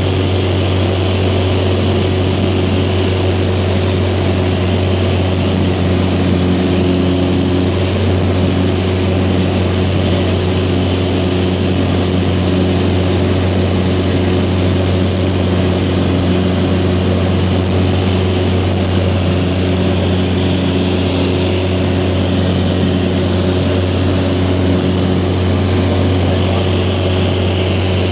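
Light high-wing aircraft's piston engine and propeller droning steadily at a constant pitch, heard from inside the cabin.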